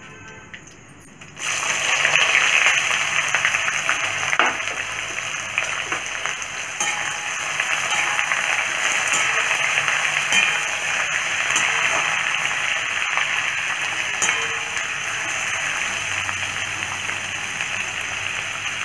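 Sliced onions sizzling in hot mustard oil in an aluminium kadhai. The frying hiss starts suddenly about a second and a half in and stays loud and steady, with occasional clicks and scrapes of a metal ladle stirring against the pan.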